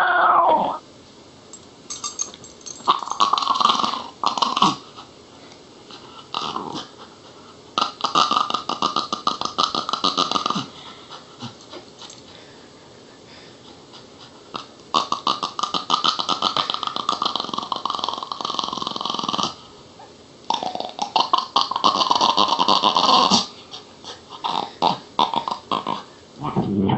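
Small dog growling in several long bouts of a few seconds each, with short pauses between, each growl a fast rattling pulse. It is a warning growl at another dog close beside it.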